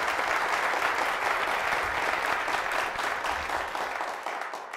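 Audience applauding, the clapping starting to fade away near the end.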